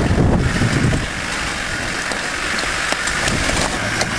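Land Rover Defender's engine pulling up a rocky track, loudest in the first second and then dropping away under a steady hiss.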